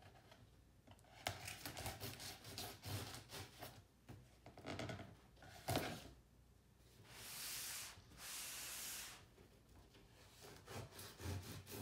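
Cardboard box handled on a wooden table: scattered rubs and light knocks. Then two steady scrapes of about a second each, about seven and eight seconds in, as the box is slid and turned.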